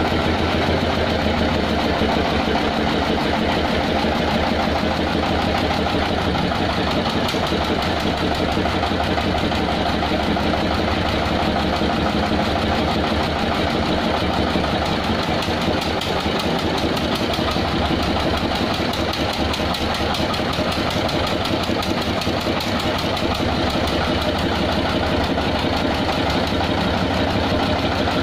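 Engine of a homemade 'grandong' dump truck idling steadily, with a rapid, even pulsing knock.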